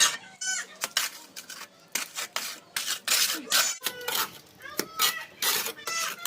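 Mason's trowel clinking and scraping against mortar and masonry in quick repeated strokes while packing a hole, with a few short voiced sounds between the strokes.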